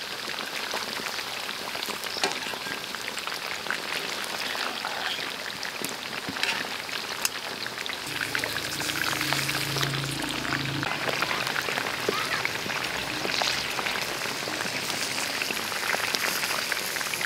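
Bone-in beef chops sizzling and crackling in hot oil in a black wok, with many small pops and spits.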